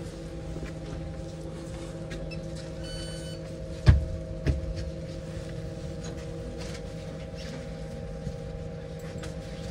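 Cabin sound of a Bogdan T70117 trolleybus underway: a steady electric hum of several constant tones from the drive over a low road rumble. A brief faint beep sounds about three seconds in, then two heavy knocks follow half a second apart.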